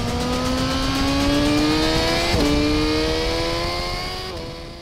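Suzuki GSX-R1000R's 999.8cc four-stroke inline-four engine accelerating hard through the gears. Its pitch climbs steadily and drops at two upshifts, about two and a half seconds in and again near the end, then the sound fades away.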